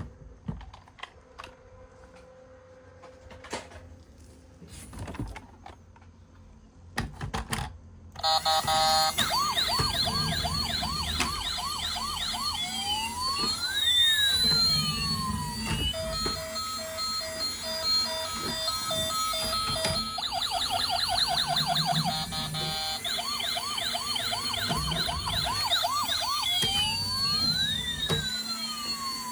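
A few quiet clicks and knocks, then about eight seconds in a toy emergency vehicle's battery-powered siren starts and keeps going. It cycles between a rapid yelp, a slow rising-and-falling wail and pulsed beeping tones.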